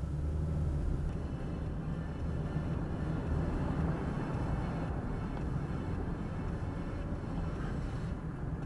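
Steady road and engine rumble inside a moving car, picked up by the dashcam's microphone.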